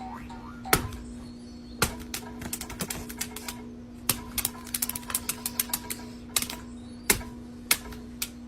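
Irregular sharp clicks and knocks, some in quick clattering runs, over a steady low hum.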